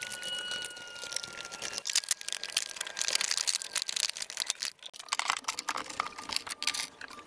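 Hard plastic engine-bay covers and parts being handled and pushed into place by hand: an irregular string of clicks, knocks and rustles.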